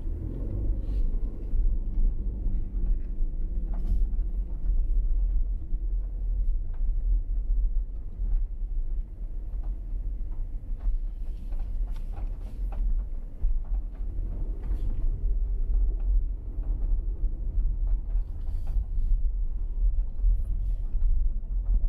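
Car driving slowly on a gravel dirt road, heard from inside the cabin: a steady low road and engine rumble with scattered small ticks and knocks throughout.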